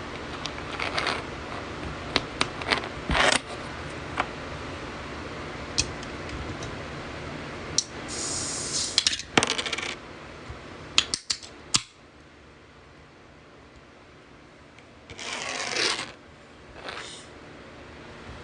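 Aluminium energy-drink can being handled and opened: a run of sharp metallic clicks and clinks, a hiss about eight seconds in, and a short rush of noise near the end.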